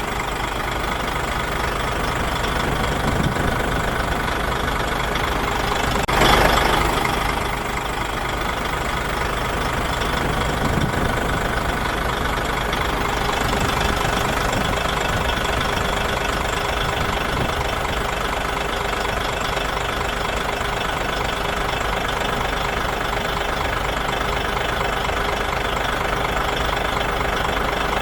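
Heavy earthmoving machine's diesel engine running steadily, with a brief louder surge about six seconds in.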